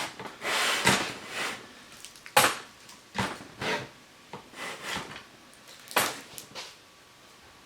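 Handling noise from a Ridgid cordless sliding compound miter saw being adjusted by hand: rubbing and rattling, with a few sharp knocks and clicks a second or more apart, fading near the end.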